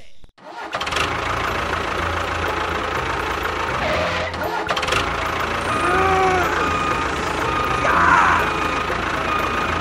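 Tractor engine running steadily with a low throb, with a few short rising-and-falling tones over it.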